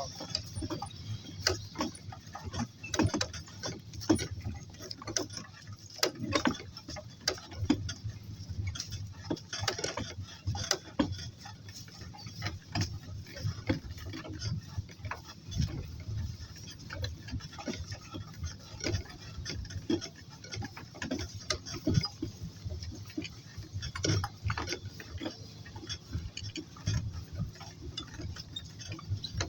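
Walking donkeys and a person moving over the ground: a steady run of irregular clicks and knocks, several a second, from hooves, footsteps and rattling gear.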